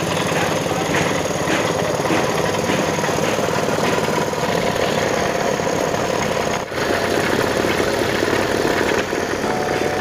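An engine or motor running steadily, cut off for a moment about two-thirds of the way through.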